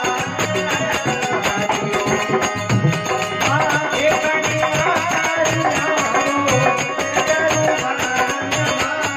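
Marwari devotional bhajan played live on a harmonium, with a dholak drum and small brass hand cymbals (manjira) keeping the beat.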